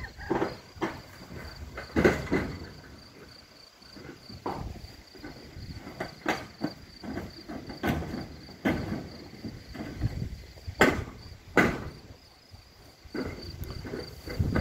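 Insects chirring steadily in a high, pulsing tone, under gusty low rumbling of wind on the microphone. Several sharp knocks cut through, the loudest about two seconds in and twice around the eleven-second mark.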